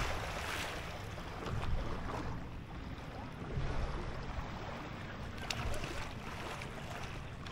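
Small lake waves lapping against a paddleboard's hull, with wind rumbling on the microphone and a short slap of water about five and a half seconds in.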